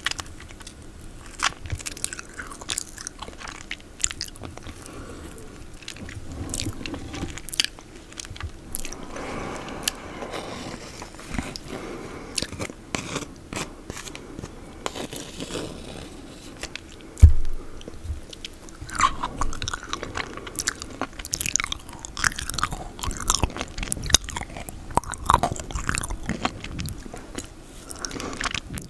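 Mouth sounds of eating peanut butter: many sticky wet smacks, lip and tongue clicks and chewing. One loud thump about seventeen seconds in.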